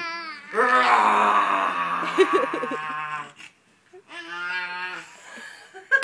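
A father and his baby growling at each other in play: a long, harsh growl starting about half a second in and lasting nearly three seconds, then a shorter, smoother growl about four seconds in.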